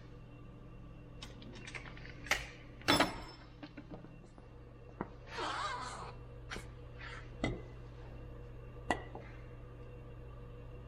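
Scattered sharp clinks and knocks of metal tools and parts being handled while working on a Ural sidecar motorcycle's wheel, the loudest about three seconds in, with a brief scraping rustle midway, over a low steady hum.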